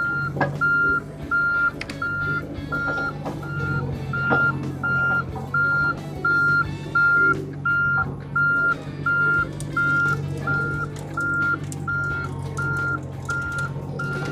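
A John Deere mini-excavator's travel alarm beeping steadily, about two and a half beeps a second, over the machine's diesel engine running. There are a few brief knocks.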